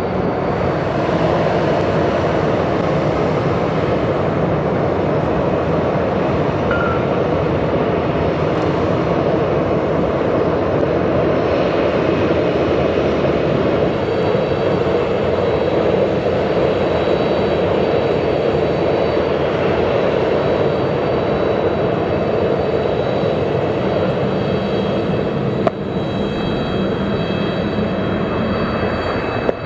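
Airbus A320-232's IAE V2500 turbofan engines running at idle while the airliner is pushed back and taxis, heard as a steady noise with a thin high whine joining about twelve seconds in.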